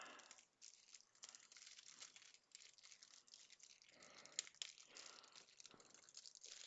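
Faint crinkling and rustling of plastic being handled, with scattered small clicks and taps, as the adhesive is fetched and worked with.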